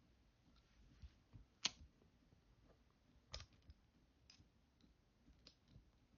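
Plastic toy-figure parts clicking as they are snapped and pulled apart by hand: a few faint sharp clicks, two of them louder and about a second and a half apart.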